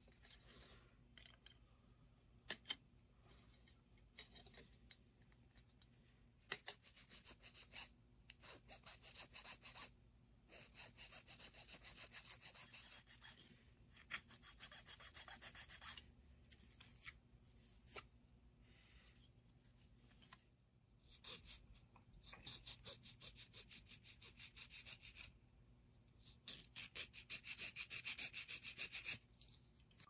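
Small hobby file rasping quietly on the cut sprue nubs of white plastic kit parts, in runs of quick back-and-forth strokes lasting a second or three each, with a few sharp clicks of the sprue cutters in between.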